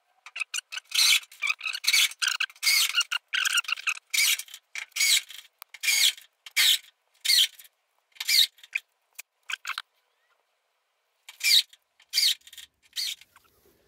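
Self-tapping screws being driven with a cordless drill into the steel flange of a car's front wing: a quick string of short squealing screeches, each rising in pitch, as the screws bite into the metal. About ten seconds in there is a pause of a second or so, then three more.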